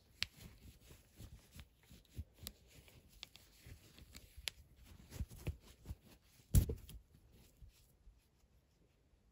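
A pair of sunglasses being rubbed clean with a baby wipe right at the microphone: irregular rustles, light scrapes and small clicks of the frame, with one louder knock about two-thirds of the way in.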